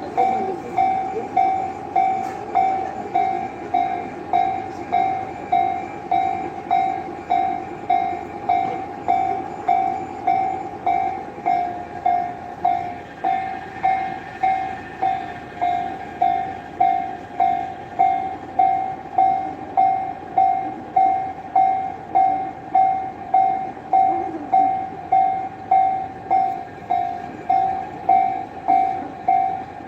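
Japanese level-crossing electronic warning bell ringing continuously in an even ding-ding rhythm, about one and a half strikes a second, over low background rumble: the crossing is closed, with a train approaching or passing.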